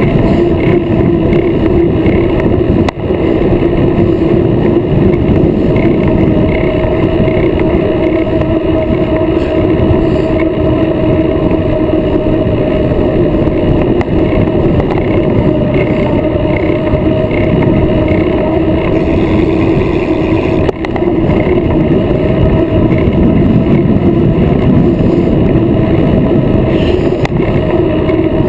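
Wind buffeting a bicycle-mounted action camera's microphone while the bike rolls fast over asphalt, a loud continuous rumble with a steady droning hum, dipping briefly twice.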